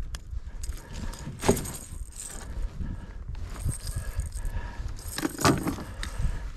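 Steel pliers and a lure's treble hooks clinking and rattling as the hook is worked out of a pike's mouth, with two louder jangles about a second and a half in and about five seconds in.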